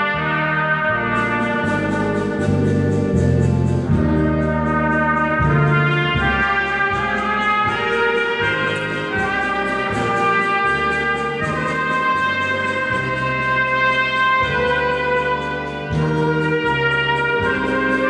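Trumpet playing a melody of long held notes over a recorded accompaniment with a moving bass line, amplified through a PA system.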